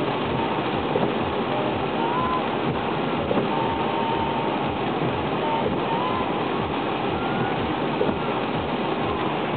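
Steady road noise inside a moving car's cabin: tyres running on wet pavement with the car's engine underneath.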